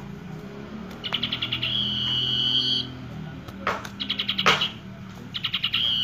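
Common iora (sirtu) singing: quick trills of rapid clicking notes that run into a long steady high whistle, repeated three times, with two short harsh notes in the middle.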